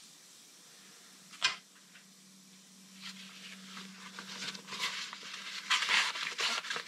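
A compressed-air blow gun hissing in short, irregular blasts while cleaning a brake caliper piston. The blasts start about three seconds in and come louder and faster toward the end, after a single sharp click about a second and a half in.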